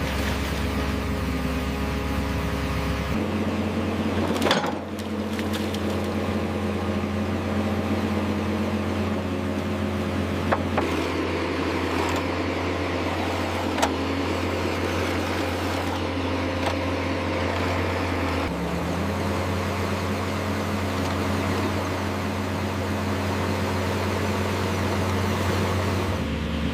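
Radio-controlled hydraulic construction machine running, its motor and hydraulic pump giving a steady hum that jumps to a different pitch abruptly a few times. A few sharp clicks or knocks stand out over it.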